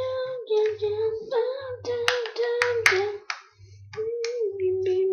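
A child humming a tune in long held notes, with a few sharp plastic clicks from handling a TV remote and its batteries. A soft low pulse repeats about twice a second underneath.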